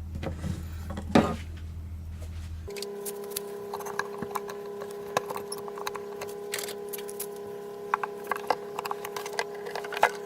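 Guitar-repair clamps being handled and tightened: scattered small clicks and clinks. A steady electrical hum runs underneath and shifts to a higher pitch about three seconds in.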